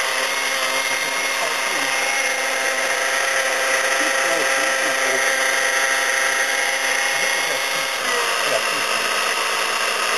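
Vintage Waring blender motor running steadily at speed, blending crushed ice and liquid into a piña colada. The sound dips briefly and changes slightly about eight seconds in.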